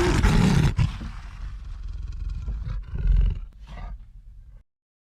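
A loud, rough roar like a big cat's, swelling twice, with the loudest surge about three seconds in, then cut off abruptly about four and a half seconds in, as an edited intro sound effect would be.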